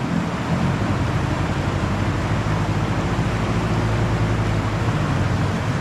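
A wooden longboat's motor running steadily under load, pushing upstream through rapids, over the loud hiss of rushing white water.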